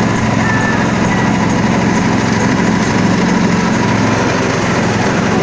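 Soybean cracking and hull-separating machine running steadily, its motor and grinder making a continuous mechanical drone as the soybeans are milled.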